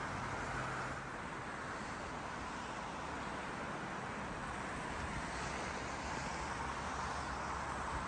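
Steady outdoor noise of wind mixed with the hum of distant road traffic, with a low rumble of wind on the microphone growing from about five seconds in.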